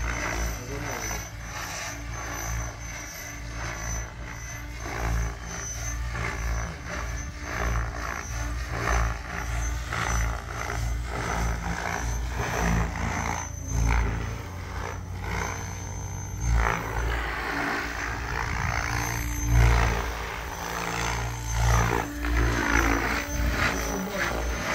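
A 700-size electric RC helicopter (SAB Raw Piuma with a Scorpion 4035-560KV motor) flying aerobatics. The rotor blades and motor make a steady high whine, and the sound swells and sweeps in pitch as the helicopter turns and passes. Under it runs an uneven low rumble that rises and falls.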